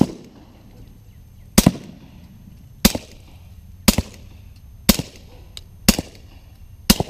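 Suppressed 9mm pistol firing Freedom Munitions Hush 147-grain subsonic full metal jacket rounds: seven shots about a second apart. Each is a sharp pop with a short ring after it.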